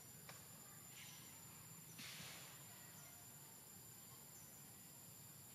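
Near silence: faint forest ambience with a steady high-pitched insect drone, and a short soft rush of noise about two seconds in.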